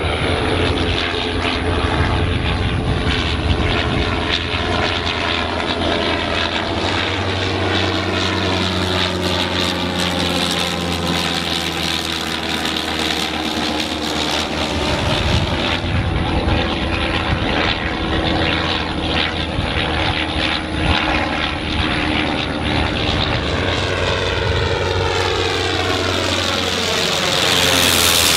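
Sopwith Snipe biplane's rotary engine and propeller droning steadily in flight. Near the end it grows louder and its pitch falls as the plane passes low and close overhead.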